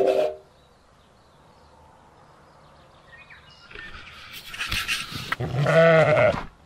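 A ram bleats once, a deep call lasting about a second near the end, after a couple of seconds of rustling and scuffing noises.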